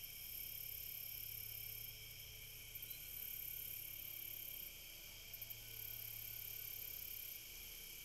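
Faint, steady high-pitched chorus of insects such as crickets, with a very high buzzing layer that drops out and returns every couple of seconds.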